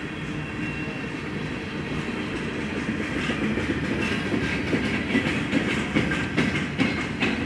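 A heavy vehicle's steady low rumble that grows louder, with a rhythmic clatter of knocks in the second half.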